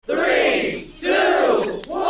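A parrot gives two loud calls, each just under a second long, the pitch arching up and then down in each.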